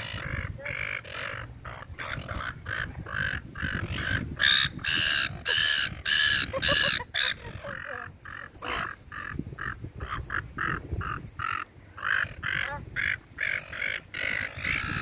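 A flock of seagulls calling: many short calls, one after another and overlapping, loudest about four to seven seconds in.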